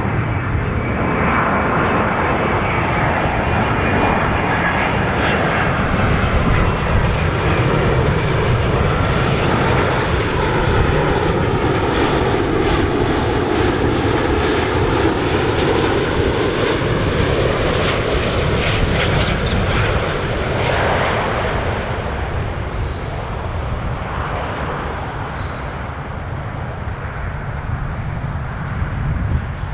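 Jet airliner on final approach passing low overhead: loud engine noise with a sweeping, shifting tone as it goes over, fading away over the last several seconds.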